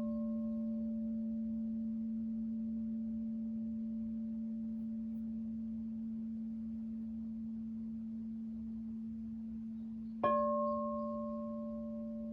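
Crystal singing bowls: one holds a steady low hum while a higher bowl rings on from a strike, then is struck again about ten seconds in and rings out slowly.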